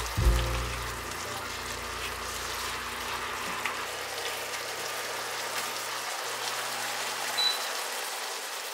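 Sliced king oyster mushrooms, onion and green onion sizzling steadily in a soy and oyster-sauce glaze in a frying pan as they are stirred with a silicone spatula.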